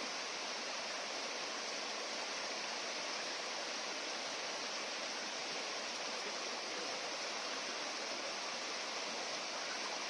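Shallow river rushing over rocks: a steady, even rush of water.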